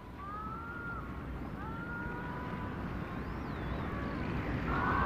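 Dolphins whistling: several drawn-out whistles, mostly level or gently gliding, with one higher whistle rising and falling about three seconds in, over a low steady rumble. The sound fades in, growing louder.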